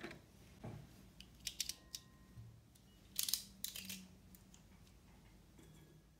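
Pottery tools clicking and clattering as they are picked out of a metal tin, with a louder clink about three seconds in as a glass jar is set down on the table. A low steady hum runs underneath.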